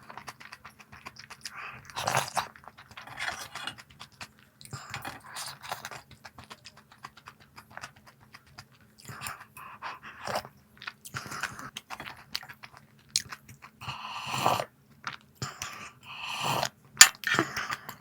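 A person chewing crunchy snack food close to the microphone: irregular crisp crunches and bites, with a few louder crunches near the end.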